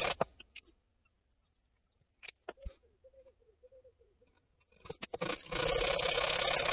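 Sandpaper on a hand sanding block rubbed back and forth over a wooden air rifle stock, smoothing a glued-in repair piece flush. The sanding stops just after the start, a few light taps follow, and it starts again about five and a half seconds in.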